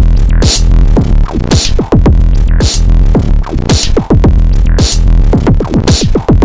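Electronic beat played on a UVI Falcon software sampler instrument: heavy sub-bass, a bright noisy drum hit about once a second, and many quick synth sweeps falling in pitch.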